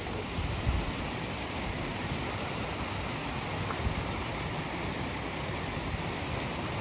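Waterfall's steady rush of falling water, an even hiss, with two brief low thumps, one just under a second in and one near four seconds.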